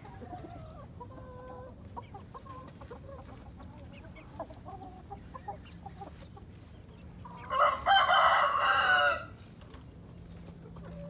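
Chickens making soft clucks and short calls, then a rooster crows once, loudly, about two-thirds of the way in, for about a second and a half.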